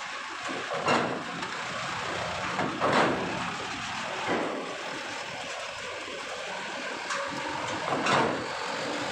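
Box trucks driving off a ferry across its steel loading ramp: steady vehicle noise with loud knocks as wheels cross the ramp, about a second in, at three seconds, and again near the end.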